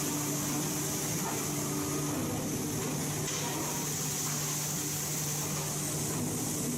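Steady hum of running machinery: a constant low tone with a steady hiss above it and no distinct blows or changes.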